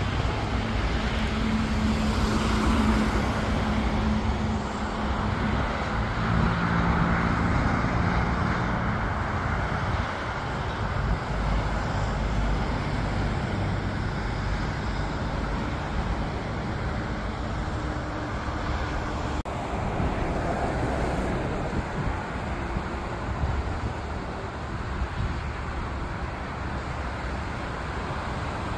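Jet engines of an Airbus A321-231 (IAE V2500) on final approach, a steady rumbling roar with a low hum that drops in pitch about six seconds in.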